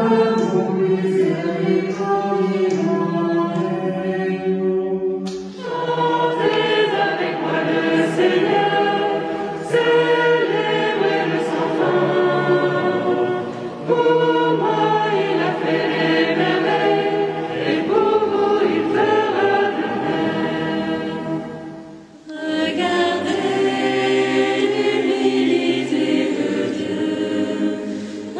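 Choir of mixed voices singing unaccompanied in held chords. The sound changes abruptly about five, fourteen and twenty-two seconds in, as the recording cuts to other passages.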